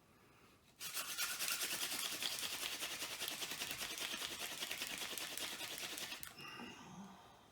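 Hand drill fire by friction: a tall ironweed spindle spun fast between the palms on a white pine fireboard, making a rapid, dry rubbing whirr. It starts suddenly about a second in, runs about five seconds, then stops and trails off.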